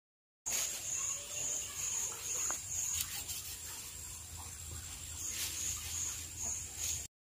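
Large knife chopping through a king fish into steaks on a wooden stump, a few faint knocks, over insect chirping that pulses about twice a second and pauses midway.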